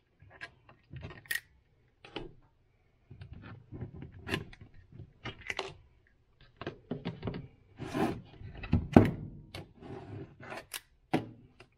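Metal soft-plastic lure mold and its clamps handled and opened by hand: irregular clicks, knocks and scrapes of metal on metal and on the bench, with the loudest knock about nine seconds in.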